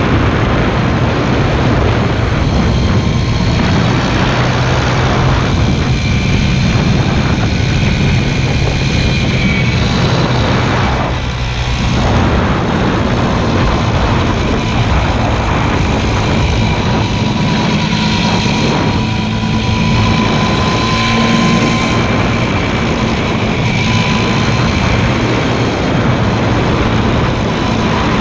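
Motorcycle engine running steadily under way, a continuous loud drone with a dense rush of noise over it; it eases briefly about eleven seconds in.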